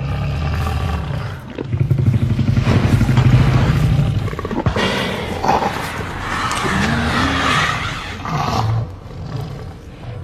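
Tyrannosaurus rex roar sound effect: a deep, rumbling roar, then a longer, louder one, followed by higher, wavering bellowing cries whose pitch rises and falls.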